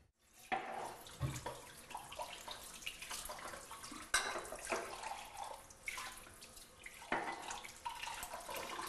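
Kitchen tap running into a sink while dishes are washed by hand, with repeated clinks and knocks of crockery and cutlery; the sharpest come about half a second, four seconds and seven seconds in.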